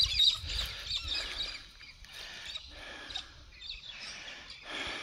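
A flock of birds flying overhead, chirping and calling, most densely in the first second and then more sparsely. Wind rumbles on the microphone for the first couple of seconds.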